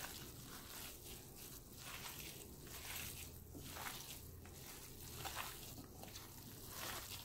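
Gloved hands kneading and tossing flaked striped bass meat with seasonings in a ceramic bowl: faint, soft squishing and rustling strokes about every half second to a second, over a low steady hum.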